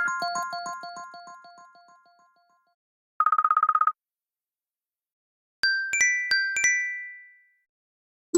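iPhone (iOS) alert tones played one after another: a pitched repeating note pattern fades out over the first two seconds, then after a pause a rapid buzzing trill lasts under a second, then four quick chime notes ring out and fade.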